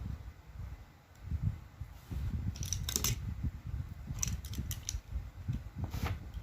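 Cutter knife cutting the plastic outer jacket of a UTP network cable: low handling rustle with sharp snipping clicks in two clusters through the middle and another near the end.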